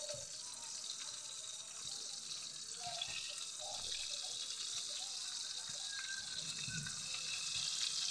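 Battered chicken pieces frying in hot oil in an iron pan: a steady sizzle that gets louder from about three seconds in.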